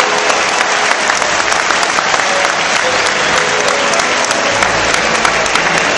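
Large crowd applauding steadily: a dense, continuous patter of many hands clapping.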